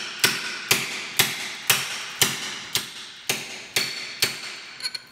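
Hammer striking a steel drift punch against a rusted brake pin in an Allis Chalmers C tractor's cast-iron rear axle housing, about two blows a second with a short metallic ring after each, nine in all, then a couple of lighter taps near the end. The stuck pin has broken loose and is starting to move.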